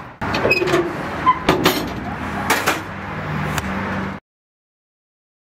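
Heavy steel lid of an offset barbecue smoker being closed, with a run of metallic knocks and scrapes. The sound cuts off abruptly about four seconds in, leaving dead silence.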